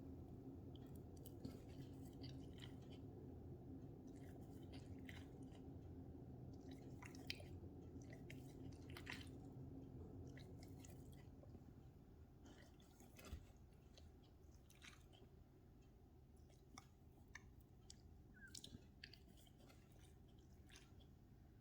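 Faint mouth sounds from a Chow Chow puppy: scattered soft clicks and smacks of its jaws and tongue as it yawns, over a low steady hum that drops a little about halfway.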